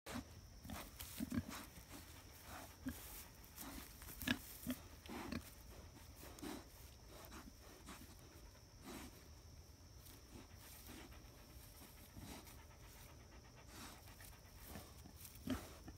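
A dog panting and snuffling in short, irregular breaths, with a few louder ones around four seconds in and again near the end.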